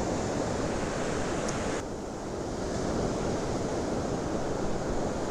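Ocean surf washing onto the beach, a steady rush of breaking waves whose hiss eases for a moment about two seconds in and then builds again.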